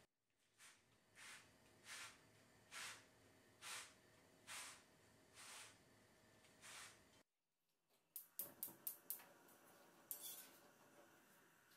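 Soft, evenly spaced swishes, about one a second, as a cloth presses and rubs a chapati on a tawa pan. After a short gap, a gas hob's igniter clicks rapidly about six times, then there is a brief hiss as the burner lights.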